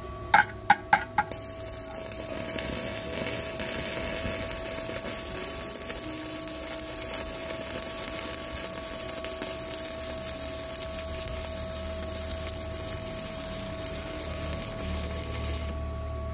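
Stick welding with a 4 mm E6013 electrode at 182 amps. A few sharp taps come as the rod is struck, then the arc crackles and spits steadily for about fourteen seconds and stops near the end. The rod is burning well at this current.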